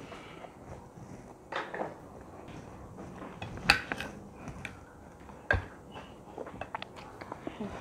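Steel knife and fork clinking and scraping on a ceramic plate while cutting a large bakso meatball. There are a few sharp clinks, the loudest about halfway through, then a quicker run of small ticks near the end.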